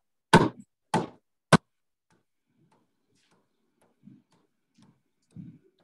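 Hand adze, a Nic Westerman, chopping into a wooden bowl blank to hollow it around the drilled centre hole. Three sharp strikes come quickly in the first second and a half, about half a second apart, followed by a few much fainter, duller blows.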